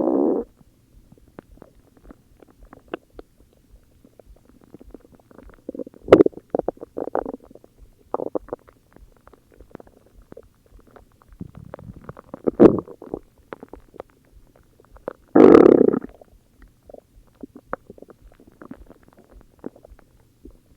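A person's stomach growling in several separate rumbles. The longest and loudest, about a second, comes about three-quarters of the way through. Small gurgles sound between the rumbles.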